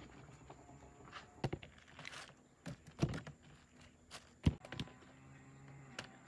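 Star fruit being taken from a woven bamboo basket and dropped into a plastic colander: a series of irregular soft knocks, with a brief rustle about two seconds in.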